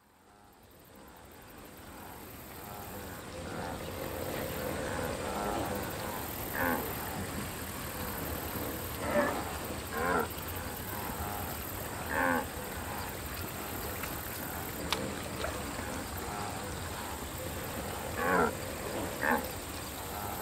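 Cartoon wildebeest giving short grunting calls, six in all, some in quick pairs. Under them runs a steady outdoor ambience that fades in from silence over the first few seconds.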